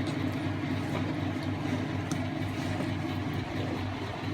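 Steady low machine hum from a running motor or fan, with a few faint light ticks.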